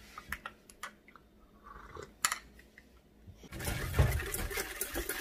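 A few faint clicks and knocks, then from about three and a half seconds a wire whisk beating dalgona coffee mixture in a stainless steel bowl: fast, dense scraping and clicking of the wires against the metal.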